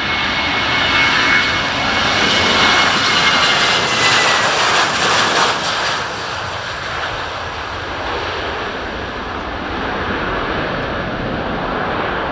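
Boeing 737-700's CFM56-7B turbofan engines at takeoff power during the takeoff roll and lift-off: a loud jet roar with a high whine that dips slightly in pitch about two seconds in. Loudest in the first half, easing a little after about six seconds as the plane climbs away.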